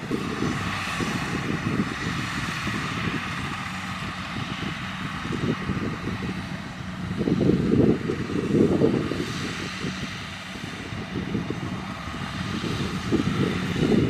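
Kubota DC-70 rice combine harvester's diesel engine and threshing machinery running steadily while harvesting. A louder low rumble swells twice a little past the middle.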